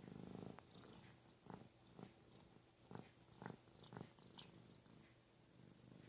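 Domestic cats, a tabby and a ginger, purring steadily and quietly while grooming each other. About five short licking strokes come through in the middle.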